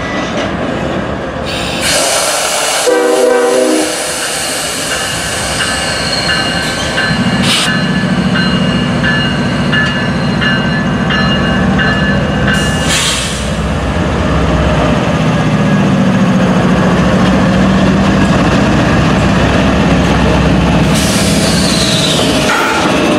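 Freight cars rolling slowly on jointed track behind a diesel locomotive, a steady rumble of wheels on rail with faint wheel squeal. A short locomotive horn blast sounds about three seconds in, and the locomotive's diesel engine hums steadily through the middle.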